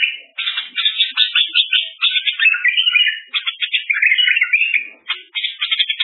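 A songbird singing a long, unbroken song of rapid trills, chirps and warbled phrases, high-pitched, with brief pauses near the start and about five seconds in.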